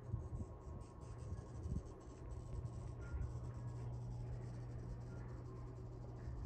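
Faint scratching and many small clicks from cats' paws and claws moving on a tile floor, over a steady low hum.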